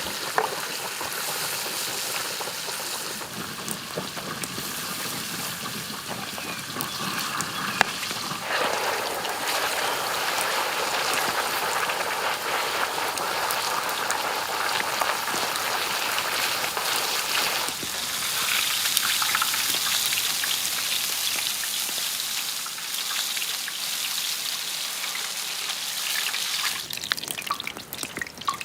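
Food frying in hot fat: a steady, dense sizzle of fine crackles. It grows fuller about a third of the way in and turns thinner and higher about two-thirds in.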